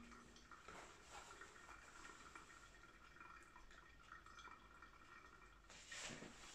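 Near silence, with the faint drip and trickle of brewed coffee draining through a pour-over paper filter into a glass jug.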